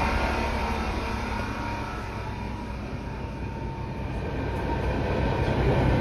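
Athens Metro train running, heard from inside the car: a steady rumble and rail noise that grows quieter for a few seconds and then rises again toward the end.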